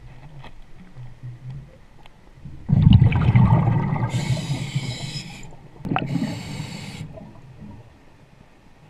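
Scuba diver breathing through a regulator underwater. About three seconds in comes a loud rush of exhaled bubbles, followed by a high hiss from the regulator, and a second, shorter rush with hiss comes near six seconds.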